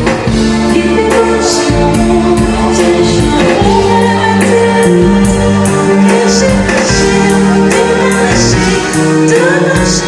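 Music with singing over a steady percussion beat, about two beats a second.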